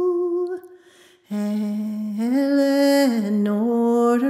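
Unaccompanied solo voice singing an Irish-language song in sean-nós style. A held note ends under a second in and is followed by a short pause for breath. A new phrase then starts low, climbs, and dips again near the end.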